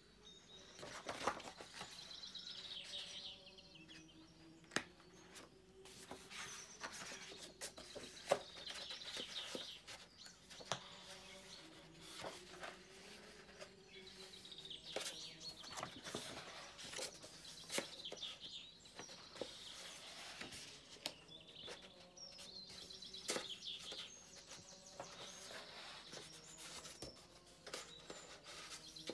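Large, thick paper pages of an oversized art book being handled and turned, with soft rustles and sharp little taps. A bird sings in the background, a short trilling phrase every several seconds.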